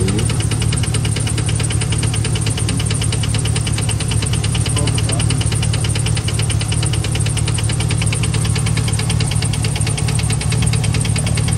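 GM Vortec V8 truck engine idling, a steady hum with a fast, even ticking or knocking running over it.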